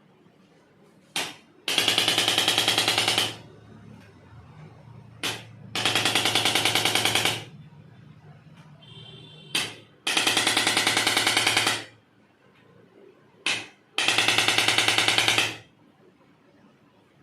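A handheld electric percussion device, such as a massage gun or electric adjusting tool, run in four short bursts. Each burst is a buzzing run of rapid, even pulses lasting about a second and a half, and each comes just after a sharp click.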